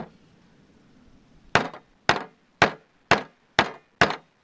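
Hammer head of a Stansport 6-in-1 survival tool whacking a bent metal part of the tool to straighten it out: sharp, evenly spaced blows with a short ring, about two a second, starting about a second and a half in.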